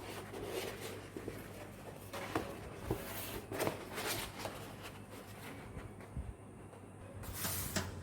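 Handling of a large sheet of watercolour paper: irregular rustling and scraping strokes with a few light taps.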